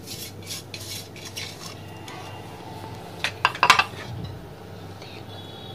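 Kitchen dishes clinking: light taps as chopped fenugreek leaves are tipped from a glass bowl into a ceramic mixing bowl, then a quick cluster of sharp clinks, the loudest sounds, about three and a half seconds in as a small steel oil pot is handled.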